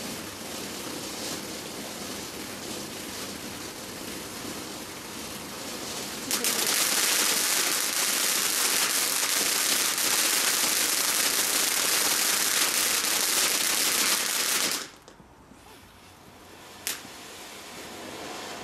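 Ground fountain firework spraying sparks with a steady hiss. About six seconds in, a much louder dense crackling starts and holds for about eight seconds, then cuts off suddenly. Near the end there is a single sharp crack.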